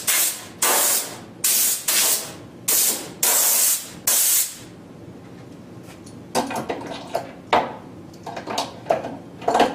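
Compressed-air blow gun blasting chips and swarf off a lathe in about six short bursts of loud hiss, the last one the longest. After that come a few light knocks and clicks as the blow gun is hung back up.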